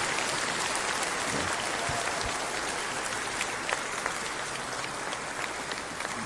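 A large audience applauding after the end of a speech, a dense steady clapping that slowly fades.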